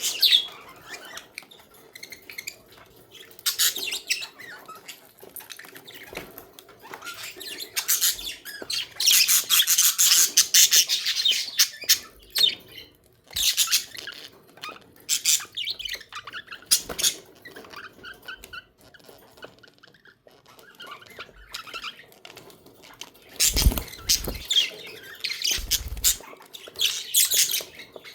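Budgerigars chattering and chirping in irregular bursts of rapid high-pitched warbles and squawks, with a few dull thumps near the end.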